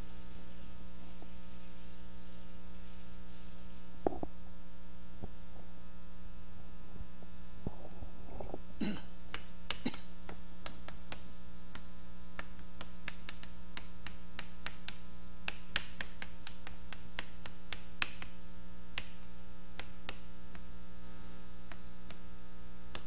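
Steady electrical mains hum, with a run of short chalk taps and scrapes on a blackboard from about nine seconds in as characters are written.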